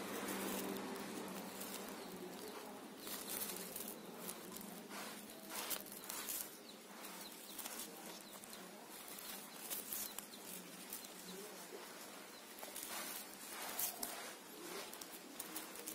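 Thin plastic grafting strip rustling and crinkling in short, irregular crackles as it is stretched and wound around a branch graft.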